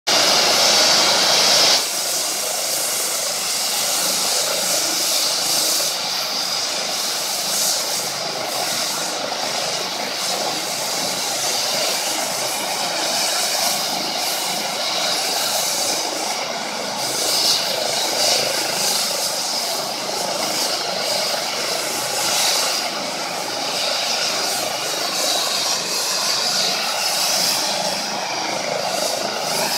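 ADAC twin-turbine rescue helicopter running on the ground with its rotor turning: a steady turbine whine over rotor noise, louder for the first two seconds. Near the end the whine starts to rise as the turbines spool up for takeoff.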